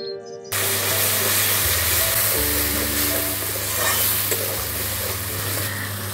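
Spice paste of onion, ginger, garlic and green chilli, mixed with ground spices, sizzling loudly as it fries in hot oil in a pan. The sizzle cuts in suddenly about half a second in.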